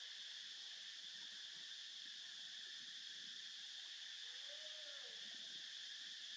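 Steady high-pitched drone of an insect chorus, with a faint short call that rises and then falls about four and a half seconds in.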